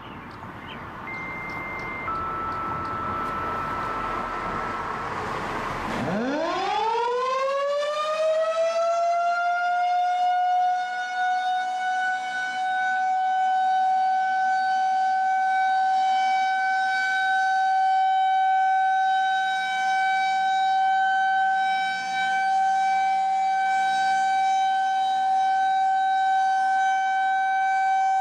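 Federal Signal 2001-130 outdoor warning siren winding up about six seconds in, its pitch climbing fast and then holding as one steady, loud tone. This is the steady Alert signal, which signifies a tornado watch.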